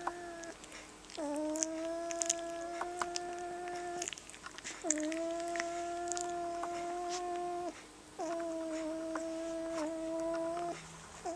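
Rough collie puppy, 18 days old, whining: four long, steady cries on the same pitch, each about three seconds with a short slide down at its start and brief breaks between. Faint small clicks sound throughout.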